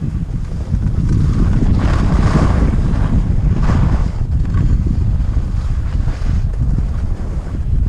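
Rushing wind buffeting the microphone of a skier's camera on the way downhill, a heavy low rumble that comes up suddenly at the start. Skis scrape loudly on hard-packed snow about two seconds in and again near four seconds.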